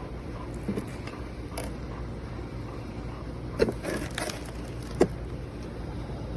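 Several short plastic clicks and knocks from the Hammerhead detail sander and its attachment being handled, the loudest two near the middle and about five seconds in, over a steady low hum.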